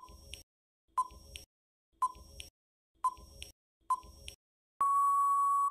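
Countdown timer sound effect: five short beeps about one a second, then one longer steady beep near the end marking time up.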